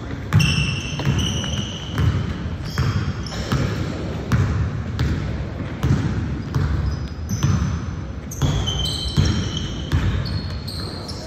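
Basketball being dribbled on a hardwood gym floor, repeated bounces about one to two a second, with sneakers squeaking on the court.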